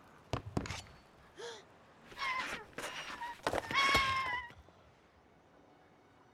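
Injured baby dragon crying: two high, wavering squeals, the second louder and longer, about 2 and 4 seconds in. A couple of thuds come just before them, near the start.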